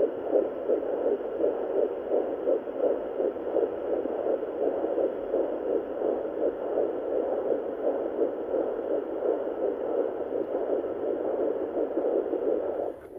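Fetal heartbeat from an 11-week pregnancy, played through a Sonoline fetal doppler's built-in speaker: a fast, even pulse of about 155 beats a minute. It stops abruptly near the end.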